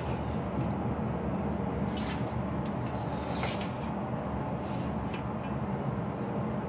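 Steady low background hum, with a few soft, brief handling knocks and rustles as chili peppers are moved about inside a plastic pot, about two and three and a half seconds in and again near five seconds.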